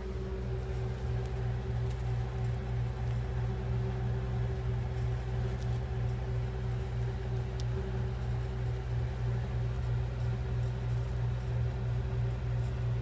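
A steady low mechanical hum with a fainter, higher steady tone above it, like a fan or motor running.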